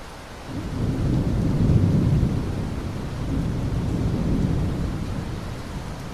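A long, low rumble of thunder over steady rain. It builds about half a second in, peaks around two seconds, swells once more, then slowly dies away under the rain's hiss.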